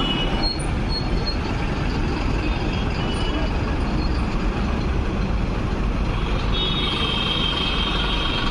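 Busy road traffic with buses running, a steady engine and tyre din. A high, thin tone, like brakes squealing, joins about six and a half seconds in and holds to the end.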